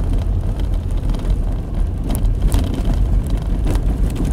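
Car interior road noise while driving slowly on a snowy road: a steady low rumble from the engine and tyres, with scattered light clicks and knocks.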